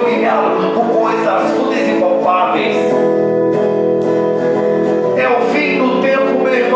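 Music: a guitar playing over the song's backing, in an instrumental passage without lyrics.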